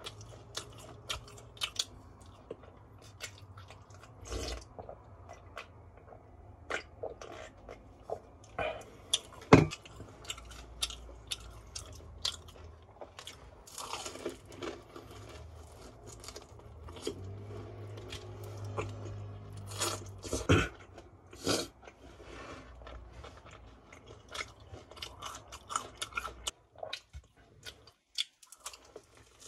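A person biting and chewing crispy seasoned fried chicken (BHC Puringkle): a stream of sharp crunches and crackles as the coating breaks, with a few much louder bites. It goes quiet briefly near the end.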